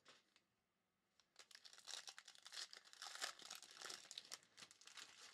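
Foil wrapper of a basketball trading-card pack crinkling and tearing as it is ripped open by hand. A dense, crackly rustle starts about a second in and keeps going.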